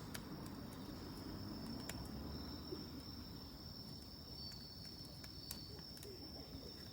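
Campfire crackling, with scattered sharp pops, over a steady high-pitched trill of insects.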